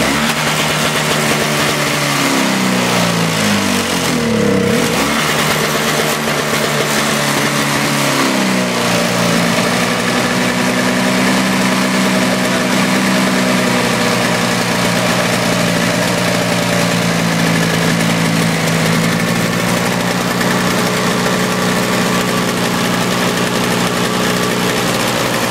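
Toro CCR 2450 snowblower's two-stroke engine running, its speed surging up and down unevenly for the first eight seconds or so, then settling into a steady run.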